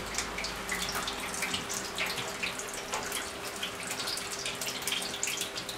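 Electric fan running with a steady low hum, under an even hiss scattered with small crackles.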